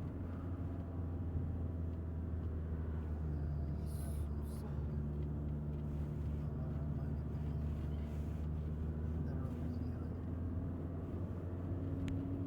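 Steady low drone of a car's engine and road noise heard inside a moving car, with a brief click about four seconds in.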